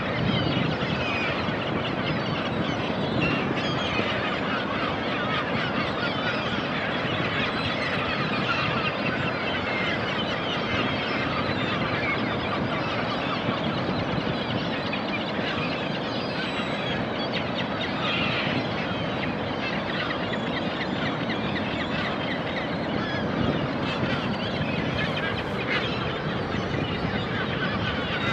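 A dense flock of seabirds calling over and over, many short honking, squawking calls overlapping, over the steady wash of ocean surf.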